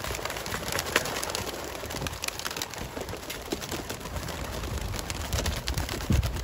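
A flock of young racing pigeons released from crates, many wings flapping and clapping together as they take off, a dense crackling flutter.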